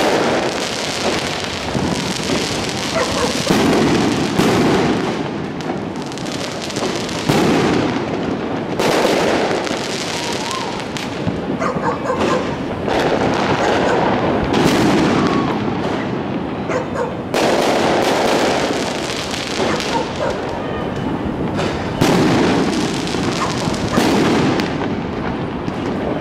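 Many fireworks going off at once: a steady din of overlapping bangs and crackles from aerial rockets bursting overhead, with louder single bangs every few seconds.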